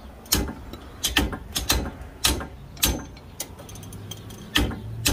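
Ratchet wrench clicking in slow, slightly uneven strokes, roughly two clicks a second, while the Charger's brake caliper bracket bolts are tightened.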